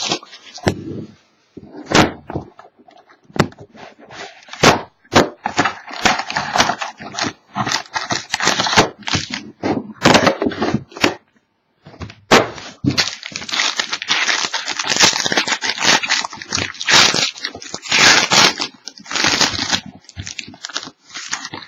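Plastic wrapping crinkling and tearing and cardboard being handled as a sealed box of trading cards is opened: a dense, irregular crackle with many sharp clicks and knocks, close to the microphone.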